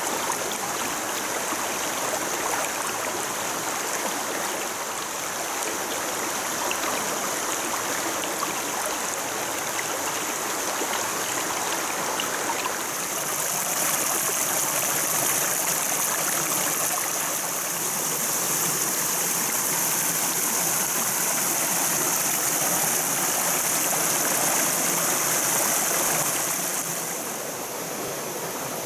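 Shallow mountain stream flowing and splashing over mossy rocks in small cascades, a steady water sound that grows louder and hissier for a stretch in the middle and eases near the end.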